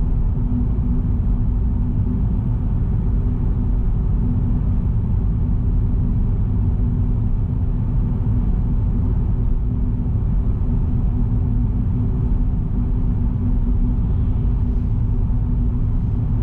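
Car driving at a steady pace: an even, low rumble of road and engine noise with a steady hum, no change in pitch.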